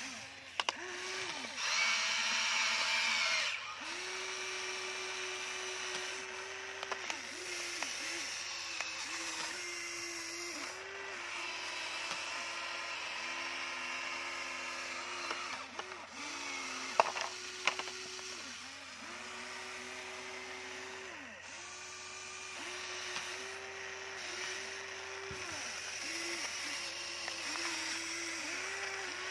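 Electric motors of a Huina remote-control toy excavator whining in many short runs that start and stop as the arm and bucket move, the pitch dipping as each motion ends. Stones clatter now and then, with one sharp knock a little past halfway.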